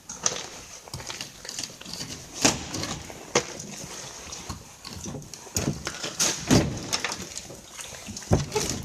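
Footsteps with irregular crunches and sharp knocks, several of them loud, over a steady hiss.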